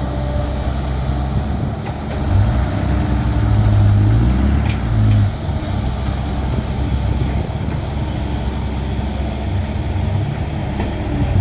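Heavy diesel engine running with a steady low drone, swelling louder for about three seconds a couple of seconds in.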